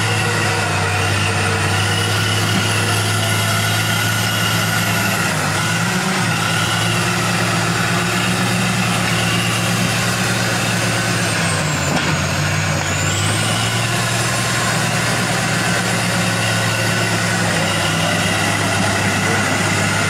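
Crawler bulldozer's diesel engine running steadily under load as it pushes mud through a shallow river. The engine note drops briefly twice, a few seconds in and again just past halfway, then recovers.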